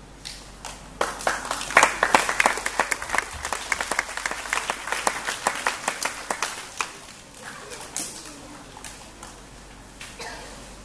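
Audience applauding: a burst of clapping that starts about a second in and dies away after about six seconds, leaving a few scattered claps.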